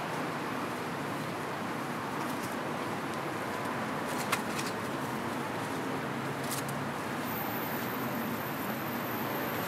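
Steady outdoor street ambience with a hum of traffic, over which a few soft clicks and crinkles come from a plastic-wrapped cardboard box being handled; the sharpest click is about four seconds in.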